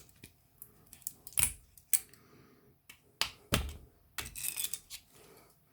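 A hand tool clicking, knocking and scraping against the cells and plastic cell holder of an 18 V lithium-ion power tool battery pack as one cell is pried loose: a string of sharp separate clicks with short bursts of scraping after the middle.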